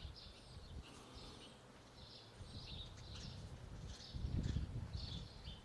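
Birds chirping in short repeated calls, a few a second, over faint background noise, with a brief low rumble about four seconds in.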